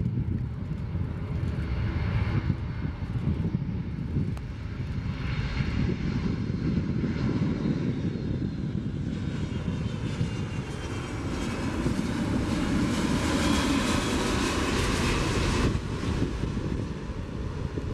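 Jet noise from the four Pratt & Whitney F117 turbofans of a Boeing C-17 Globemaster III on final approach. The noise builds as the aircraft comes close, with whining tones that fall in pitch. It drops suddenly near the end, leaving a lower rumble as the aircraft touches down.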